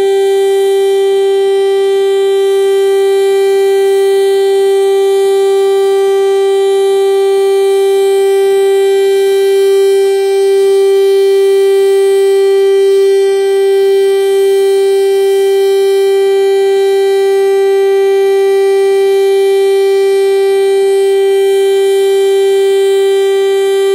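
Federal Signal STL-10A outdoor warning siren sounding its steady Full Alert signal, holding one loud, unwavering pitch with strong overtones.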